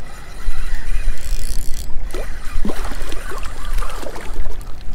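Wind buffeting the camera microphone: a loud, uneven low rumble, with a few short faint chirps in the middle.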